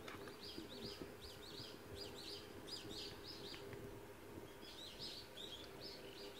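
Small birds chirping in quick, faint, repeated short chirps, about two or three a second, with a brief pause a little past the middle, over a faint steady hum.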